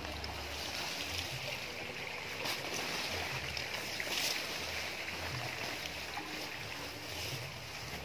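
Leaves and plant stems rustling as someone pushes through dense undergrowth, a steady hiss with irregular low bumps underneath.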